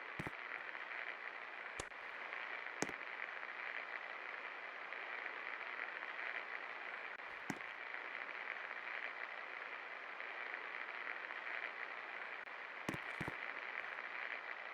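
24-inch Best Electric Works ceiling fan running: a steady hiss with a handful of sharp clicks at irregular moments.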